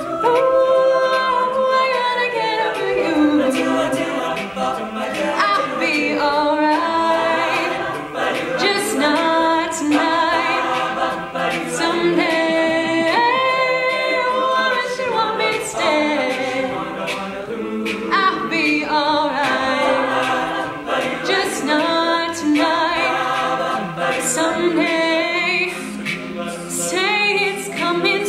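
Mixed a cappella vocal group singing in harmony, with a female soloist on a microphone leading over the backing voices.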